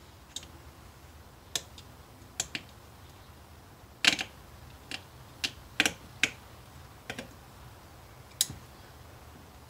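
About a dozen sharp, irregular clicks and taps of a precision screwdriver and tiny screws against the plastic cord-clamp housing of a Ring wired spotlight camera as the screws are worked out; the loudest click comes about four seconds in.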